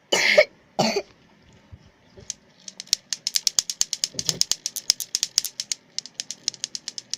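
Two short coughs, then a fast run of sharp clicks, about five or six a second, from lato-lato clacker balls knocking together.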